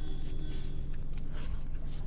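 Car air-conditioning blower motor running with a steady hum and irregular rattling clicks: the abnormal blower noise.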